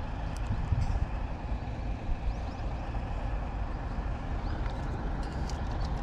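Steady low rumble of road traffic, with a few faint short high chirps and light ticks toward the end.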